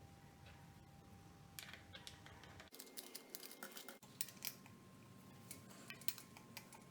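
Faint, scattered small clicks and metal ticks of a bicycle saddle being fitted and clamped onto the seatpost.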